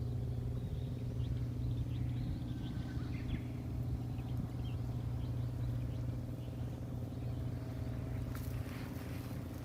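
A steady low engine hum runs throughout, with faint bird chirps over it in the first few seconds and a few light clicks near the end.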